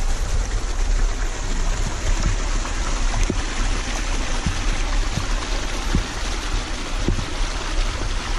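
Small stream running over moss-covered rocks in little cascades: a steady rush of water.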